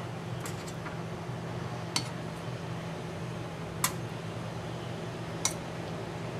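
Metal kitchen tongs clinking three sharp times, about two seconds apart, while picking cooked prawns from a metal tray, over a steady low hum.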